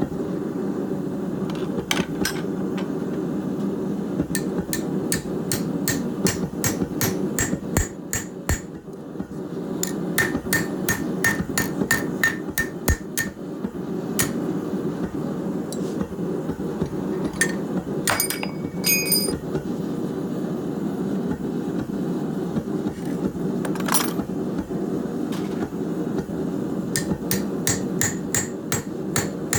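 Hammer blows on hot steel over an anvil, coming in runs of quick strikes with short pauses between. A few blows leave the metal ringing. A steady rushing noise runs underneath.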